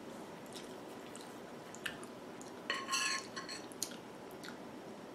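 Metal fork scraping and clinking against a ceramic dinner plate. A short squeaky scrape comes about three seconds in, between a few light clicks.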